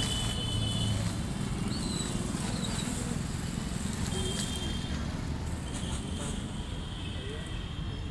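Plastic dog-food bag crinkling as it is torn open and dry kibble poured out onto a sheet of paper, over a steady rumble of street traffic.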